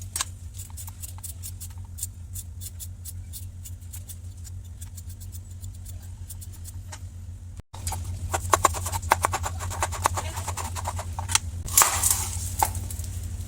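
Kitchen knife slicing a carrot thinly on a cutting board: a quick, even run of light taps, softer at first, breaking off for a moment about eight seconds in and then coming on louder.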